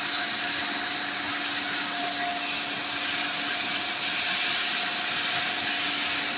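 Pet food extrusion production line machinery running steadily: an even mechanical hiss with constant whining tones over it.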